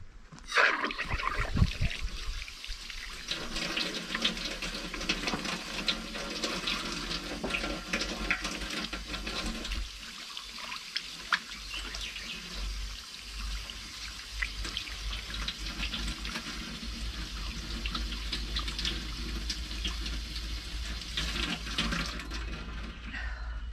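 Water running from a tap, starting about half a second in and shutting off near the end.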